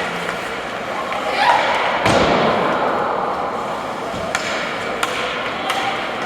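Ice hockey play in a rink: a sharp thud about two seconds in, then a few lighter knocks, over a steady arena murmur.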